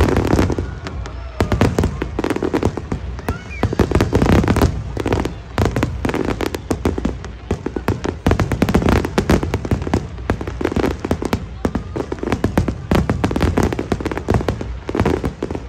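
Large aerial fireworks display: a continuous barrage of bangs and crackling from many shells bursting close together, over a low rumble.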